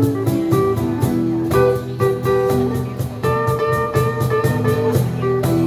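Live blues band playing an instrumental break: guitar playing held and bending notes over bass and a steady drum beat.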